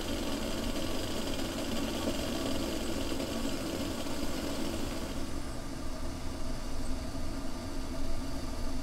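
Camping stove's burner flame under a kettle, making a steady rushing hiss; its higher hiss fades after about five seconds.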